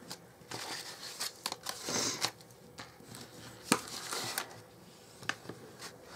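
Bone folder rubbing along the creases of folded white card, a scratchy swishing in several strokes, with a few small sharp taps in between.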